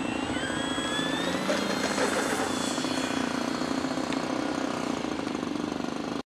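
Electric brushless motor and propeller of a Dynam Su-26m RC plane whining as the throttle opens for takeoff. The pitch rises over the first second and a half, then holds steady until the sound cuts off suddenly near the end.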